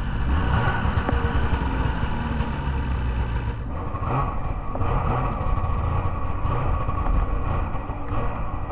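Snowmobile engines running, a continuous mechanical rumble that turns duller about three and a half seconds in.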